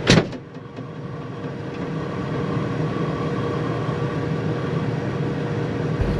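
Farm harvest machinery running steadily with a constant engine hum and drone. It opens with one sharp knock, and the low rumble swells just before the end.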